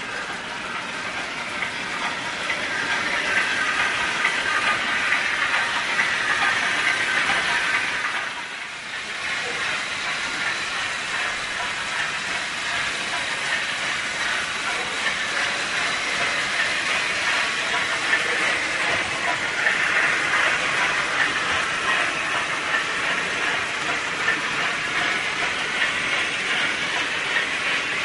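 Märklin HO-scale model trains running on the layout's track: a steady rattle and hiss of small wheels and motors rolling over the rails. It dips briefly about eight seconds in.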